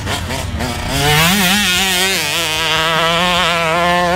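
2020 Yamaha YZ125 two-stroke engine, hopped up by Mitch Payton, buzzing at high revs under a rider on a motocross track. About a second in, the revs climb. They then hold high, wavering slightly as the throttle is worked.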